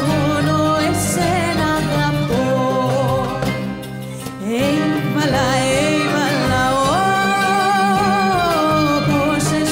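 A woman singing a Greek song in an ornamented, wavering melody over a small acoustic ensemble of frame drum and plucked strings. About four seconds in the music drops briefly, then the voice returns on a rising glide.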